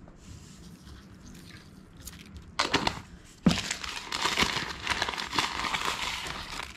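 A plastic spice packet crinkling and rustling as it is handled and opened. A sharp rustle comes about two and a half seconds in, then steady crinkling for about three seconds, stopping just before the end.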